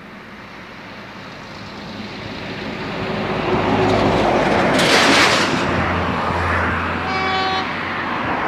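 ADtranz/Bombardier DE 2000 diesel-electric locomotive approaching on the line, its engine and wheel noise growing steadily louder, with a brief rush of noise about five seconds in. About seven seconds in it gives a short horn blast.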